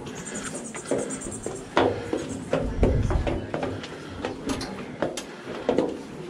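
Footsteps on a steel spiral staircase, a run of irregular knocks and clanks. A low rumble comes about three seconds in.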